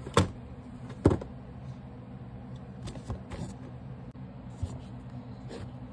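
Two sharp knocks about a second apart near the start, then a few fainter clicks, from hands handling a small MP3 player and its cable on a desk, over a steady low hum.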